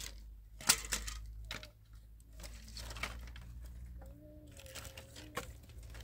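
Dry firewood sticks knocking and clattering together as they are handled and piled, with several sharp knocks, the loudest about a second in.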